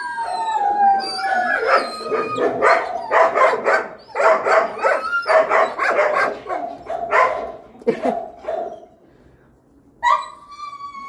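Dog whining and howling in a string of high, sliding cries, the first falling in pitch. After a short lull near the end, another falling cry follows.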